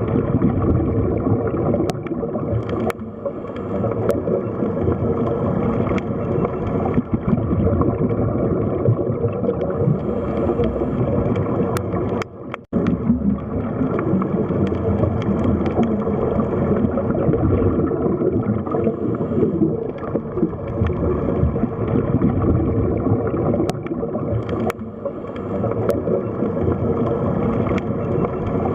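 Water sound effect processed as '8D' audio: continuous churning water noise, with a brief dropout a little under halfway through.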